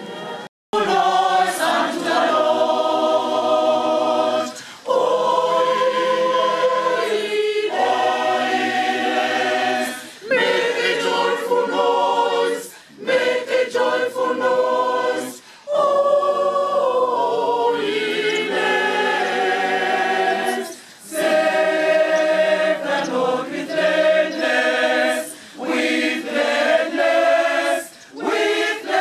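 A church choir of men and women singing in harmony, in sustained phrases with short breaks for breath between them. The sound drops out for an instant just after the start.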